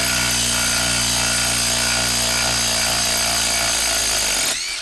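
Hilti brushless impact driver hammering steadily as it drives a 4-inch lag screw into solid wood. It stops suddenly near the end, once the lag is fully driven.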